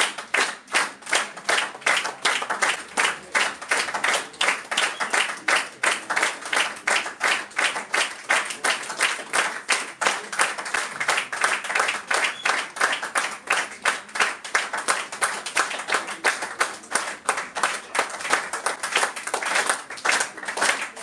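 Concert audience applauding, clapping together in a steady, even rhythm.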